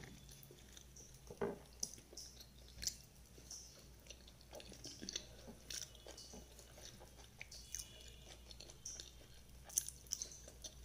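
Faint close-up chewing of food eaten by hand, with scattered soft mouth clicks and smacks.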